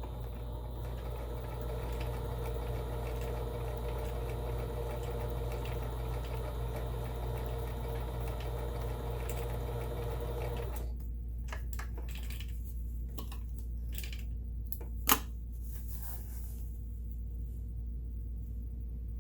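Kenmore 17922 electronic sewing machine running steadily with a motor whine while it stitches a scallop stitch, stopping about eleven seconds in. A few clicks and handling sounds follow, one sharp click about fifteen seconds in, over a low steady hum.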